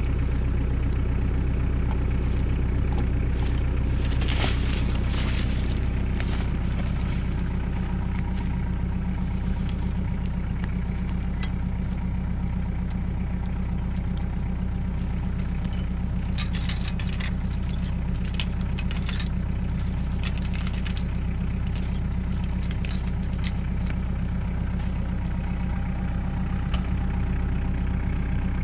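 A Kioti DK40se compact tractor's diesel engine idling steadily. Steel skidding chain clinks and rattles over it, around four seconds in and again from about sixteen to twenty seconds, as the chain is wrapped around a log and hooked to the three-point hitch drawbar.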